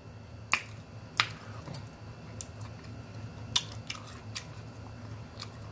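Close-miked eating sounds: scattered sharp clicks and smacks of chewing and a fork working a plate of green beans, with a quick cluster of clicks past the middle, over a low steady hum.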